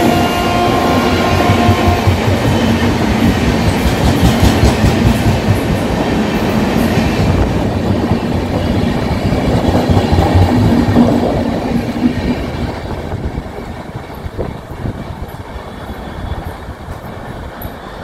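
Express passenger train coaches passing at speed, their wheels rumbling and clattering over the rail joints, with a horn note dying away in the first two seconds. The noise fades from about twelve seconds in as the last coach goes by.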